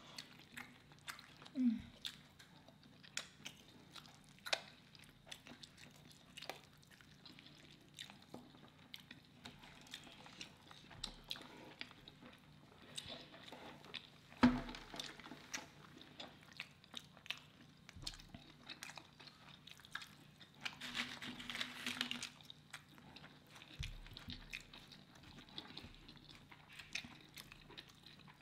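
Eating sounds: chewing and biting into a burrito and a rice bowl, with scattered small clicks and one sharper knock about fourteen seconds in.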